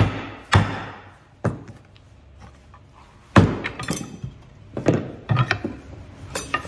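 Rubber mallet striking a wooden rocking-chair spindle to tap it out of its nailed joint: sharp single knocks about half a second to a second apart, the loudest about three and a half seconds in, then a few lighter knocks near the end.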